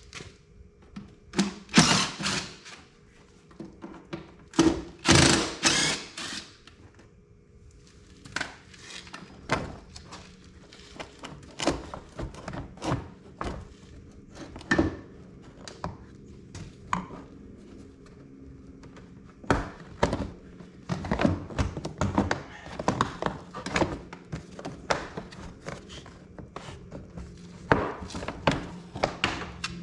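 Irregular knocks, clunks and rattles of parts being pulled off the ATV's frame and handled, with a few short scraping bursts in the first seconds and a busier run of knocks in the second half.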